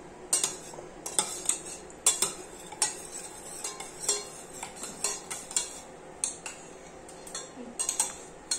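Metal spoon stirring curd thinned with water in a stainless steel mug, clinking against the sides at an uneven pace, a couple of times a second.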